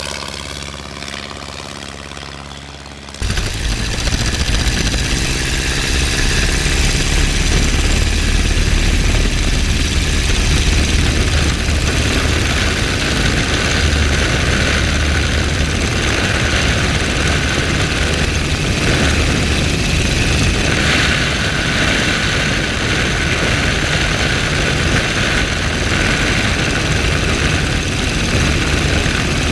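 Boeing F4B-2 replica biplane's engine and propeller, fading as the plane flies away overhead. About three seconds in it cuts to a loud, steady engine drone with heavy wind rush, heard in flight from a camera mounted on the aircraft.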